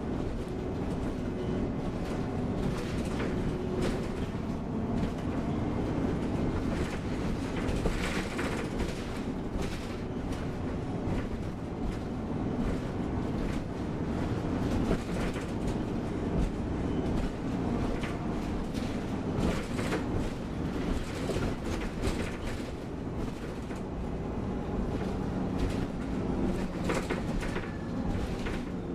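Cabin sound of a 2006 MAN Lion's City NG313 CNG articulated city bus under way: a steady engine and road rumble with frequent short knocks and rattles.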